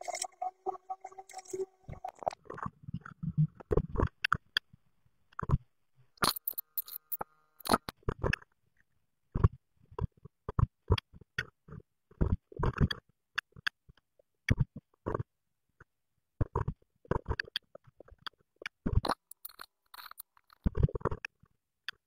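Blue tit rustling and scraping nesting material (moss, hair and feathers) inside a wooden nest box, in short, irregular crackling scrapes with gaps between them.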